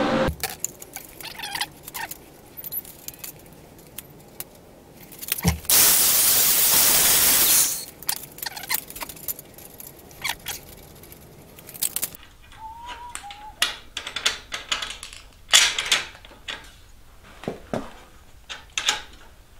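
Steel rods, rod ends and nuts clinking and tapping as they are handled and fitted on a welded steel table frame, in scattered sharp metallic clicks. A loud hiss lasting about two seconds comes about six seconds in, and a short squeak later.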